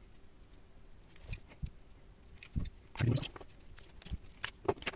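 Scattered light clicks and taps of a precision screwdriver and the metal parts of an encoder being handled during disassembly, with a louder cluster of knocks about three seconds in and a few quick ticks near the end.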